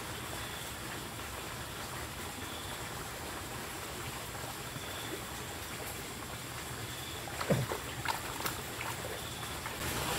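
Steady outdoor background hiss with a faint high chirp that comes about every two seconds, and a few short, sharp sounds about seven and a half seconds in.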